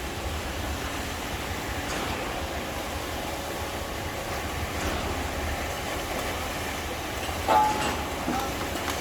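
Concrete pump truck and ready-mix truck running: a steady low diesel rumble, with a short, loud high-pitched squeak about seven and a half seconds in.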